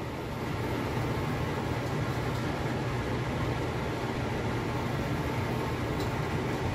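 Steady low hum with an even rushing hiss from a lit gas stove, with a lidded stainless skillet of braising trout on the burner.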